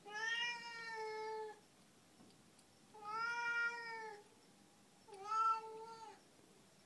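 Domestic cat meowing three times, long drawn-out calls of about a second each with pauses between: the crying of a cat stuck up on a beam and unable to climb down.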